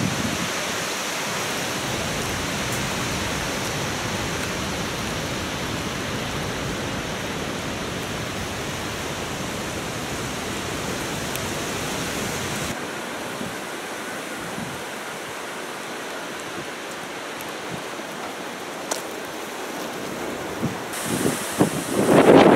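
Storm wind rushing steadily, a broad even hiss. Near the end, strong gusts buffet the microphone in loud, uneven surges.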